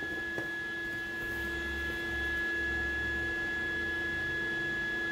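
Steady electrical hum with a thin, high, constant whine from a MIG welder that is switched on and idling before the arc is struck.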